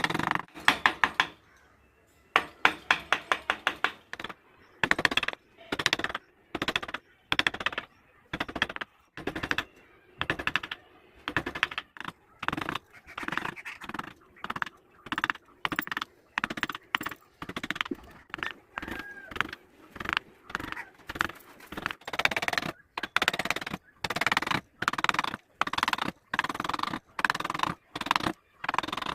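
Carving tools cutting into wood in quick strokes: rapid runs of clicks and scrapes in short bursts, broken by brief pauses.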